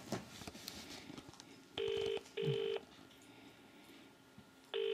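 British telephone ringing tone of an unanswered outgoing call: the double burr, two short rings close together, heard once about two seconds in and starting again right at the end.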